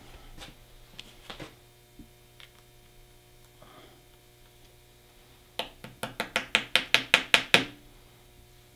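Small hammer tapping a pin through a cardboard card into a deer head mount's forehead: a few faint clicks, then, a little past halfway, a quick run of about a dozen light taps over two seconds, getting louder.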